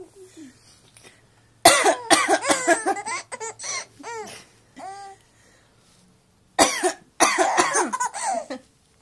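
A woman coughs twice, about two seconds in and again near the end, and each time a three-month-old baby answers with a burst of laughing and squealing.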